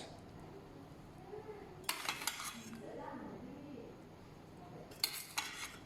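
A kitchen utensil clinking and scraping against a plate of rice while chicken pieces are spread over it, in two short clattery bursts: about two seconds in and again near the end.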